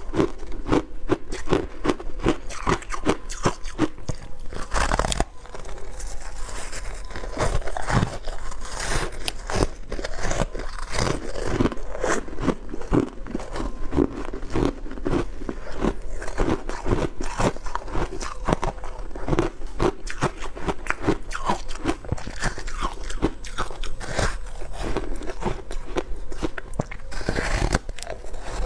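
Close-miked biting and chewing of powdery frozen ice: a dense, continuous run of soft, crisp crunches as mouthfuls are bitten off and chewed.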